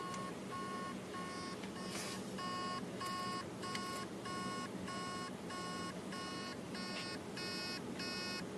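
Hard drive beeping in short, even pulses about twice a second: its spindle motor is trying to start the platters and cannot. The owner thinks the heads are most likely stuck on a platter, though a seized bearing would make the same noise.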